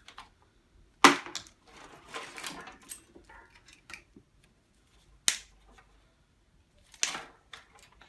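Sharp snaps and clicks of plastic clips, connectors and wiring being pulled and cut out of a washer dryer. There are three loud snaps, about a second in, just past five seconds and near seven seconds, with rustling handling of the wiring after the first.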